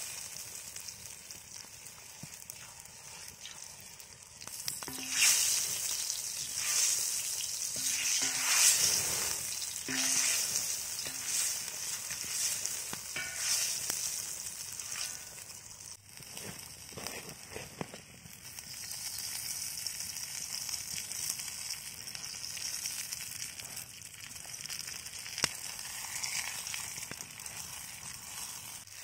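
Onion and chicken sizzling as they fry in butter in a wok over a wood fire, with a wooden spatula stirring and scraping through them in bursts between about five and fifteen seconds in. After that there is a steadier sizzle.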